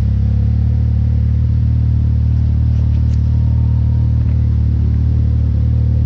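Off-road vehicle engine running at a steady, even speed, holding one pitch throughout.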